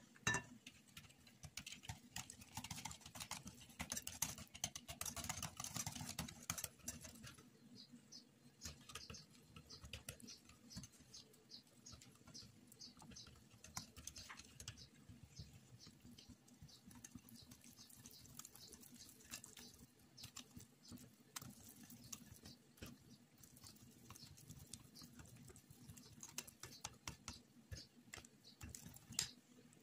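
Small wire whisk clicking and scraping against the side of a bowl while stirring a thin cookie batter, in quick rapid ticks for the first several seconds and then lighter, sparser tapping.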